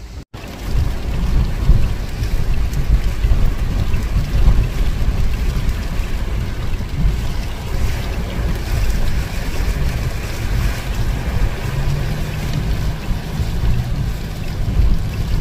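Storm wind buffeting the microphone: a loud, gusting low rumble over a steady rushing hiss.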